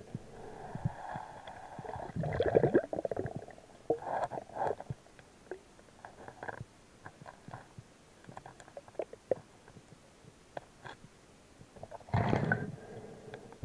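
Muffled underwater gurgling in several bursts, the loudest near the end, with scattered small clicks between them, heard through a camera held underwater.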